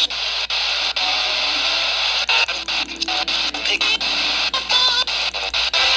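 Heavy static hiss from a weather radio receiver, broken by frequent brief dropouts, with a faint voice barely audible underneath: a weak, noisy reception of the warning broadcast.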